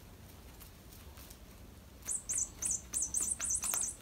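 Rapid series of very high-pitched squeaks, several a second, each a quick rise and fall in pitch, starting about halfway through after a faint, quiet first half.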